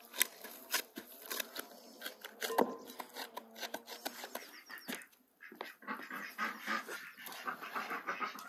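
A dog making high-pitched cries that grow dense about five and a half seconds in, among scattered clicks and knocks.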